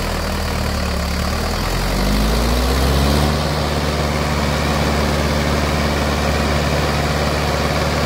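Mahindra 575 DI tractor's four-cylinder diesel engine running under the load of a rotavator. Its pitch rises about two seconds in as it picks up revs, then holds steady.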